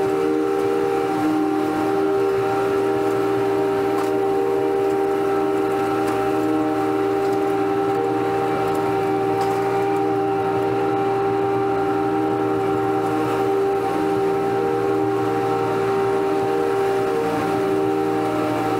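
Riding lawn mower with a rear collection hopper running steadily under way: a constant engine drone with a steady whine of several held tones over it.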